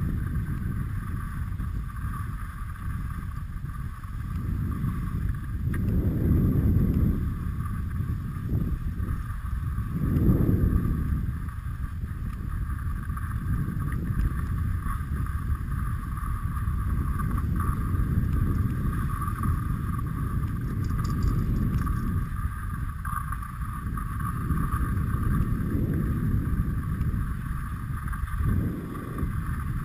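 Wind buffeting the microphone in gusts, a low rumble that swells strongly twice, about six and ten seconds in. Under it runs a steady hiss of skis gliding over packed snow while being towed up a Poma button surface lift.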